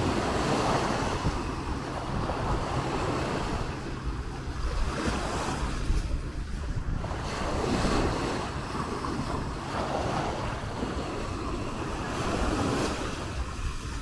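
Small sea waves washing up onto a sandy shore, the surf noise swelling and falling back every couple of seconds, with wind rumbling on the microphone.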